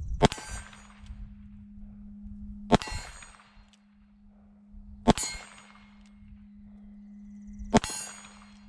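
Four shots from a .45 Colt single-action revolver with a 5.5-inch barrel, about two and a half seconds apart, each followed by the ringing clang of a hit steel plate.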